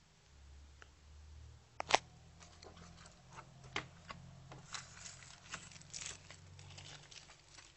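Plastic packaging on a CD album being torn and crinkled open by hand, with a sharp snap about two seconds in followed by a run of small crackles.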